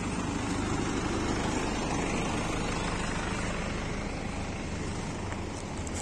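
Water tanker truck's engine running close by, a steady low drone that eases a little after about four seconds.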